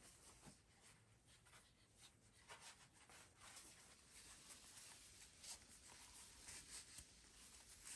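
Near silence with faint, scattered scratching and rustling ticks.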